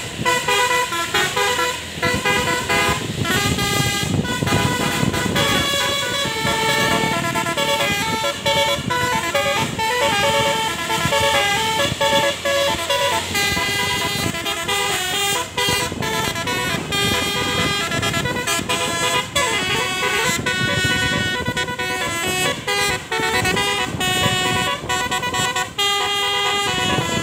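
Indonesian bus's basuri telolet horn playing a long, loud tune of held notes that step from pitch to pitch without a break.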